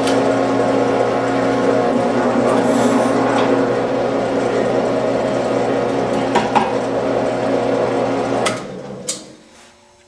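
Craftsman drill press motor running steadily, then switched off about eight and a half seconds in and spinning down to a stop. A few light knocks sound over the last few seconds.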